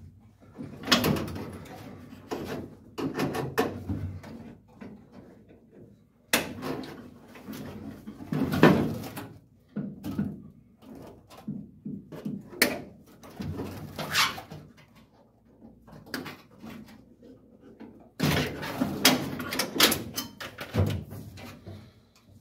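Irregular clunks, knocks and scrapes of hand work under a 1951 Chevy truck's dash, tools and parts rattling against the sheet metal, with denser clattering about six seconds in and again near the end.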